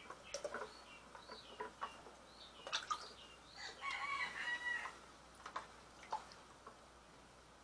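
A rooster crowing once in the middle, with a few shorter chicken calls before it. Light clicks and knocks of equipment being handled are scattered around it.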